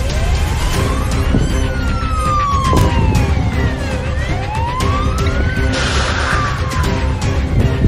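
Police car siren wailing, its pitch slowly rising and falling about every four seconds, over background music.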